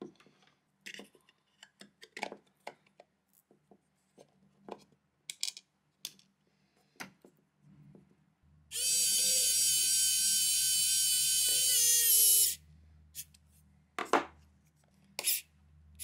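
Small electric screwdriver whirring for about four seconds, starting about halfway through, as it drives the screw into a plastic back cover; its pitch sags a little just before it stops, as the screw seats. Before it come light clicks and taps of the plastic casing and batteries being handled.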